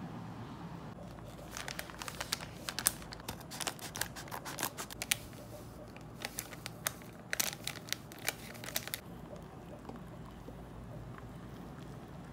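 Crinkling and crackling of an instant latte sachet being handled and shaken out into a ceramic mug, in uneven bursts that stop about three-quarters of the way through.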